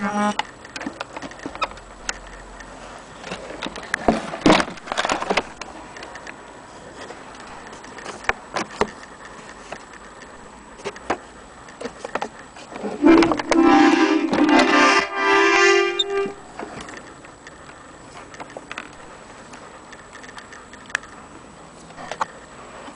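A vintage Pietro accordion being handled, with scattered clicks and knocks from its buttons, bellows and case. A little past the middle, its reeds sound a steady chord for about three seconds.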